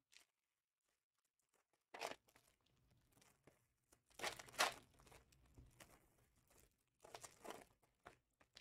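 Trading-card packaging being torn open and crinkled in three short bursts, about two, four and seven seconds in.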